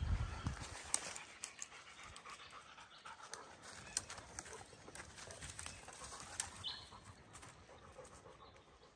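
A gundog panting, with dry leaf litter and twigs crackling underfoot in many short, sharp clicks, and a brief low thump right at the start.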